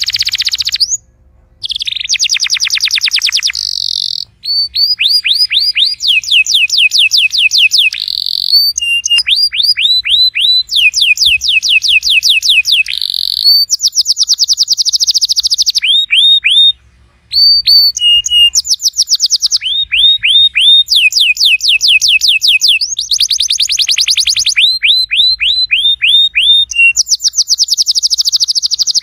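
Domestic canary singing a long song of rapid trills: each phrase is a quick run of the same note repeated, switching to a new note every second or two. The song breaks off briefly about a second in and again near the middle.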